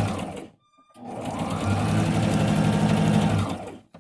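Electric sewing machine stitching a seam in two runs. It stops about half a second in, starts again about a second in, speeds up, runs steadily, then winds down and stops shortly before the end.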